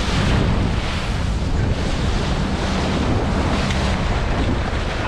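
Wind buffeting the microphone and water rushing past the hull of a boat under way on open salt water, with a low, steady motor hum underneath.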